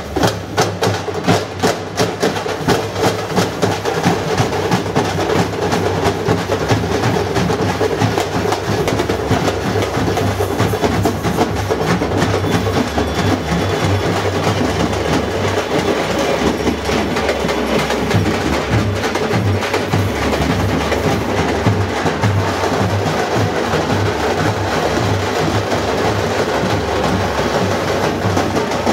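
Drums playing a loud, continuous rhythm, with strong strokes about twice a second in the first few seconds that then fill into a denser beat.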